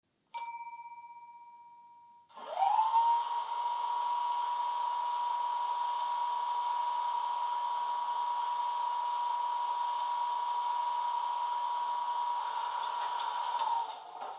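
Model locomotive DCC sound decoder playing a Class 25 diesel sound file through small speakers: a short ringing tone fades away, then about two seconds in the engine starts with a rising whine. It settles into a steady running sound with a high whine on top, and the pitch drops slightly near the end.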